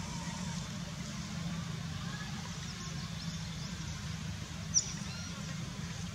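Outdoor ambience: a steady low hum under a light hiss, with faint high chirps and one short, sharp, rising high chirp a little over two thirds of the way through.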